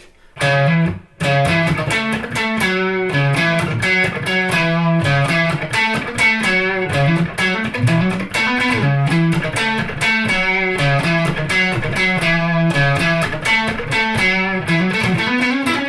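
Electric guitar (a 2002 Fender American Stratocaster) played on its neck Texas Special single-coil pickup for the "spanky" sound: a steady run of picked notes and chords that begins about half a second in.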